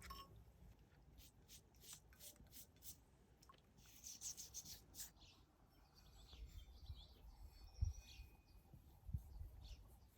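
Near silence with faint, quick rubbing strokes over the first five seconds, then a couple of soft thumps.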